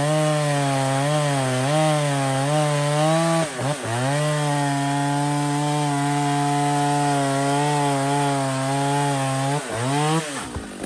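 Jonsered Super 920 two-stroke chainsaw cutting through a log at full throttle, its pitch dipping as the chain loads up in the wood. The engine note drops briefly about three and a half seconds in, then runs steady again until the throttle is released near the end and it winds down.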